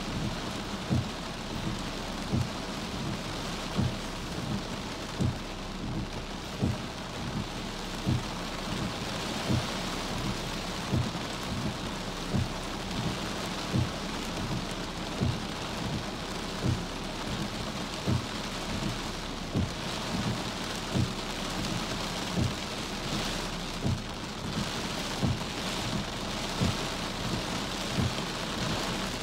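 Heavy rain falling with a steady hiss, with a short, dull low thud repeating about once a second.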